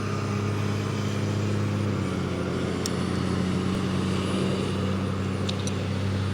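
Steady low motor hum, like a vehicle engine, with a few faint, brief high chirps.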